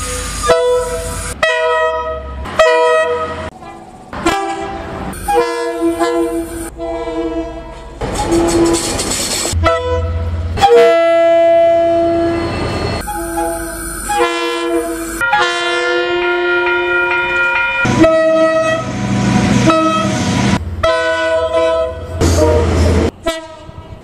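Diesel locomotive air horns sounding a string of blasts: many short toots and two long blasts of a couple of seconds each near the middle, each blast a chord of several tones, with the rumble of passing trains between them.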